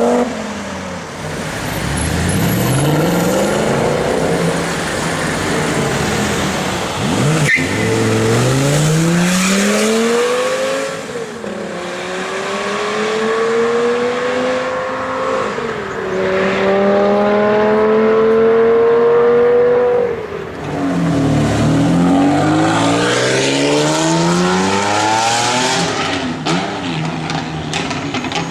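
Supercar engines accelerating hard, the engine note climbing steeply and dropping back at gear changes several times over, in a run of loud high-revving pulls.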